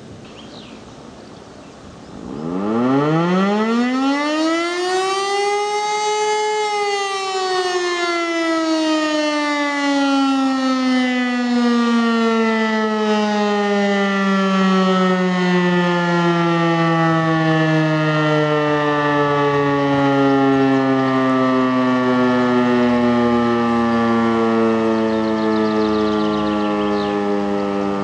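E57 electromechanical civil-defence siren sounding its test signal. It winds up steeply over about four seconds to its top pitch, then winds down slowly, its pitch falling steadily for the rest of the time.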